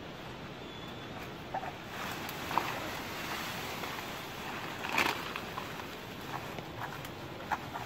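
Rustling of tall grass and dry banana leaves as a person pushes through the grass and handles a cut banana trunk. It comes with scattered sharp crackles and snaps, the loudest about five seconds in, over a steady outdoor hiss.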